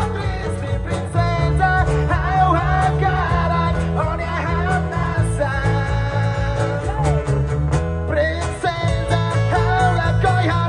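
Live acoustic band playing through a PA: a man singing over acoustic guitar, with percussive strokes from a cajón.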